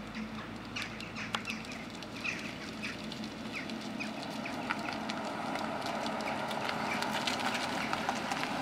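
Birds calling with short, repeated calls through the first half. Over the last few seconds the Mercedes-Benz SL 500's V8 and its tyres grow louder as the car approaches.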